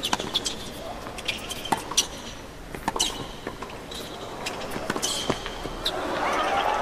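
Tennis rally on a hard court: rackets strike the ball and the ball bounces, with sharp shoe squeaks on the court surface. Near the end a crowd noise swells as the point finishes.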